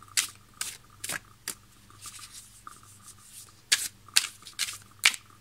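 A deck of tarot cards being shuffled by hand, the cards giving sharp, short snaps: a few in the first second and a half, then a quicker run of them near the end.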